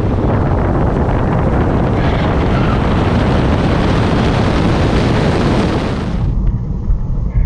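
Wind rush and road noise over a car-mounted camera's microphone as a Tesla Model S Plaid accelerates at full power beside another Plaid, growing brighter about two seconds in. It drops abruptly to quieter in-car noise about six seconds in.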